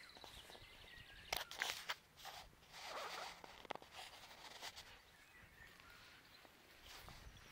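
Akita puppy close to the microphone, mouthing and chewing on something held in its mouth, with a cluster of sharp crunching clicks about a second and a half in and another near four seconds in.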